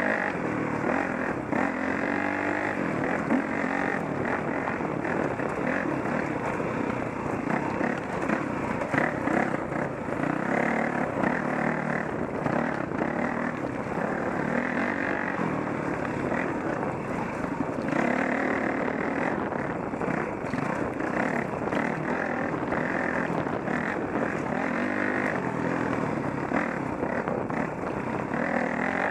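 Dirt bike engine running under changing throttle, its pitch rising and falling as the bike rides along a dirt single-track.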